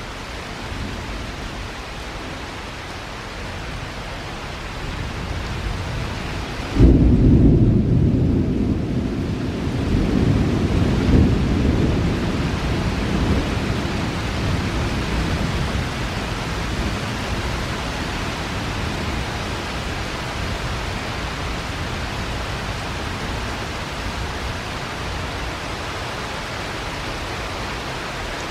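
Steady rain falling throughout. About a quarter of the way in, a sudden clap of thunder breaks and rolls on as a deep rumble, swelling once more a few seconds later before dying away into the rain.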